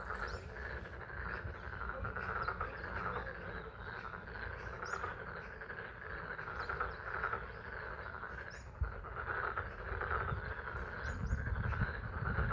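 A chorus of frogs calling steadily from a pond, a dense pulsing trill, under spring rain. A few short high chirps cut in now and then.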